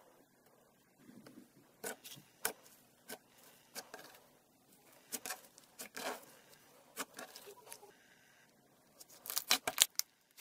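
Glossy slime mixed with gold powder and gold leaf being folded and squeezed by hand, giving scattered sharp sticky clicks and pops. A quick run of louder pops comes near the end.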